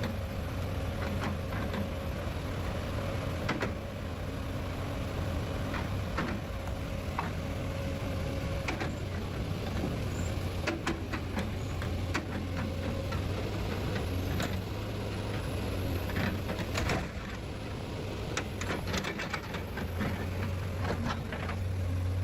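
Log loader's engine running steadily, with scattered clicks and knocks through it.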